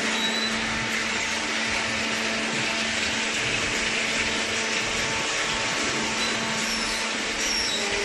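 Machinery running steadily: an even whir with a constant low hum underneath.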